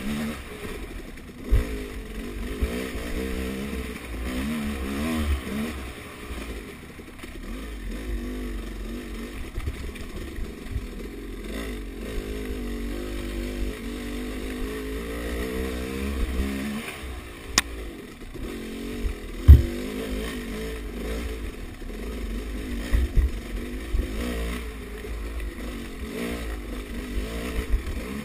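Honda CRF four-stroke dirt bike engine revving up and down continually as it is ridden over a rough woodland trail, with low wind rumble on the helmet camera's microphone. A few sharp knocks from the bike over bumps, the loudest about two-thirds of the way through.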